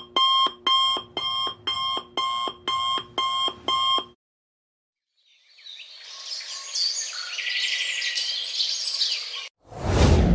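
Stock sound effects played one after another. First, an electronic alarm beeps in a repeating pattern, about two and a half beeps a second, for about four seconds. After a short silence, a hissy sound with faint chirping swells up, and near the end comes a sudden loud low boom.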